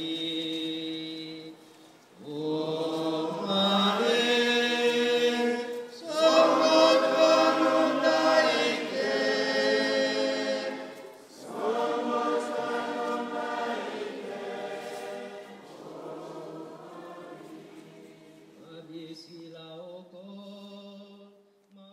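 A choir singing slow, sustained chords in long phrases, with short breaths between phrases about 2, 6 and 11 seconds in, growing quieter toward the end.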